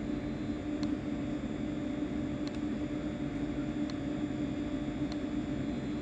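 Steady low electrical hum with hiss, and three faint clicks of the drive's keypad arrow button being pressed, about one, two and a half, and five seconds in.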